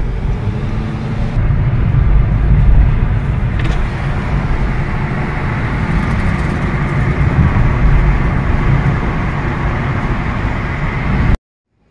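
A car driving along a road, heard from inside the cabin: a loud, steady, deep rumble of road and driving noise that stops abruptly just before the end.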